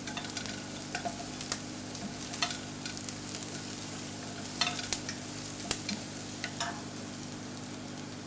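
Chopped onions, garlic and fennel seeds sizzling in olive oil in a frying pan while being stirred, the utensil clicking and scraping against the pan every second or so, over a steady low hum.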